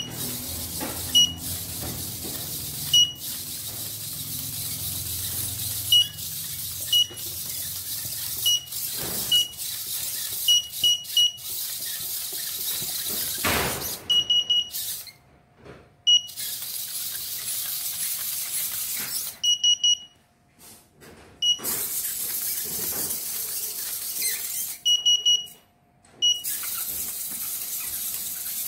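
Short, high electronic beeps, singly and in quick pairs, sound about once a second over a steady hiss. Under them is faint servo whirring from a walking Arduino quadruped spider robot. The sound cuts out briefly three times.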